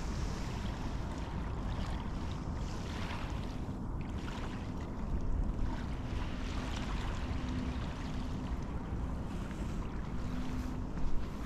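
Wind buffeting the microphone over small river waves lapping on a shingle foreshore, a steady rumbling wash, with a faint on-and-off hum in the second half and a few footsteps near the end.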